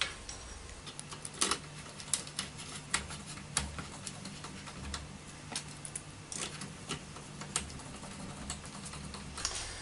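Scattered light clicks and taps of small metal hardware being handled on an aluminium V-slot extrusion frame, as screws are fitted to lock down a joining plate. A faint steady low hum runs underneath.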